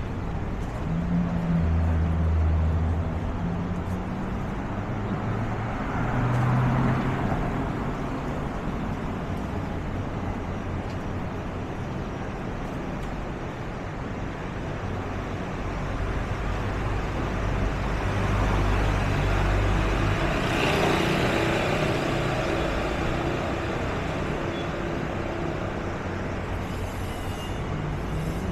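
Street traffic: vehicles passing one after another over a steady road noise, with engine hum swelling and fading several times.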